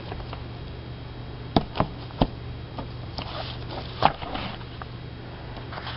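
A hardcover book handled on a wooden table: a few sharp knocks as it is set down and moved, then a papery rustle as its cover and first pages are turned, with another knock about four seconds in. A steady low hum runs underneath.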